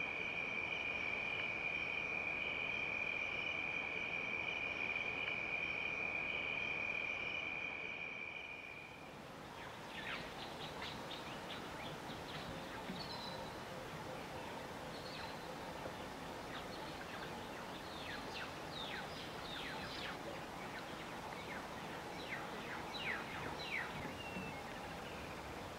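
A steady, high, continuous trill of night insects fades out about eight seconds in. After that come many short, quick bird chirps over a soft, even background hiss.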